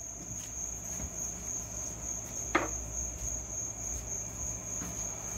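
A steady high-pitched trill like an insect's sings without a break over a low hum, with one sharp knock about two and a half seconds in.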